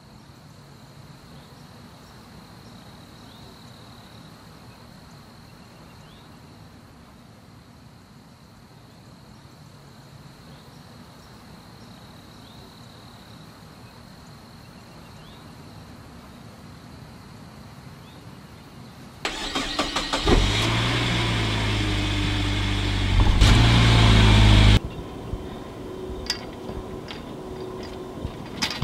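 A faint steady high-pitched drone over quiet outdoor ambience, then about 19 seconds in a loud, steady engine sound starts abruptly and cuts off about five seconds later.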